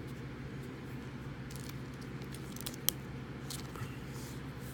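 Trading cards being handled: light, brief rustles and one sharp click about three seconds in, over a steady low hum.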